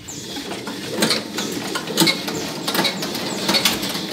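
1978 Eicher Good Earth tractor's air-cooled diesel engine running. It gets louder over the first second, then runs on with an uneven knocking beat.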